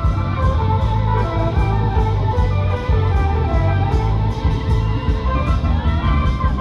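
Music with a steady beat and a strong bass line.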